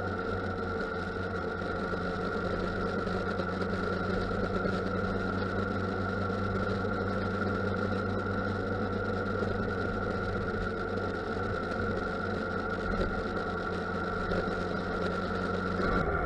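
2006 Yamaha FZ1's inline-four engine running steadily at idle or low revs. The bike has a reported stutter, with revs dropping out between about 2,000 and 3,000 rpm at idle, which the owner puts down to either the throttle position sensor or an ignition coil.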